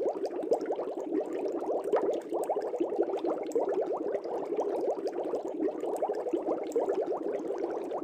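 Air bubbling up through water in a fish tank: a steady, dense stream of small gurgling bubbles, each a quick rising blip.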